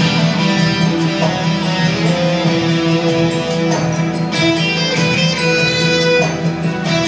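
Live band playing music with a fast, steady beat and long held notes.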